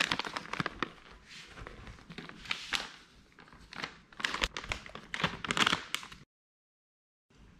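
Plastic dog-treat bag crinkling and crackling as it is shaken and handled, in an irregular run of crackles that cuts off suddenly about six seconds in.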